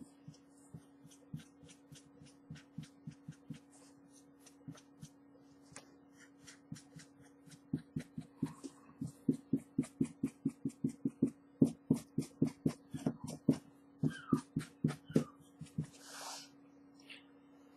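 Fabric paint pen tip dabbing on a t-shirt: a run of quick taps, sparse at first, then several a second from about eight seconds in, over a steady low hum. A short rustle comes near the end.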